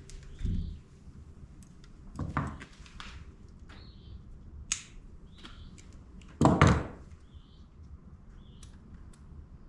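Hands working a wire and adhesive pads into the channel of a Power-Pole shallow-water anchor: three heavier knocks and scuffs, the loudest about two-thirds of the way through, and a sharp click near the middle. Faint short bird chirps repeat in the background.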